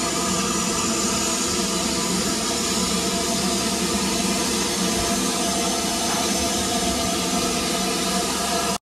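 LMS Stanier Black Five steam locomotive 45305 giving off a loud, steady hiss of escaping steam, with no exhaust beats. The sound cuts off abruptly just before the end.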